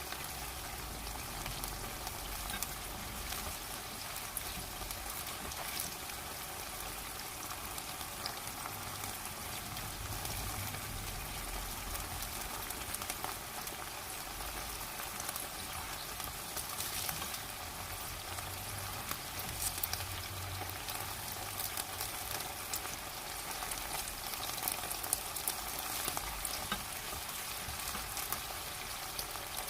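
Shishito peppers and anchovies stir-frying in a deep pan, sizzling steadily with many fine crackling pops as they are stirred.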